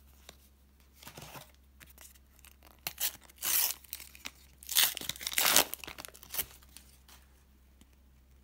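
A Panini football-sticker packet's shiny wrapper being torn open and crinkled by hand, in several short rips. The loudest tearing comes in the middle.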